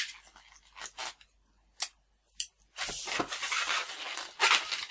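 Latex 260 twisting balloon being tied off and handled: a few short squeaks and snaps of the rubber at the neck, then continuous squeaky rubbing of hands along the inflated balloon from about three seconds in.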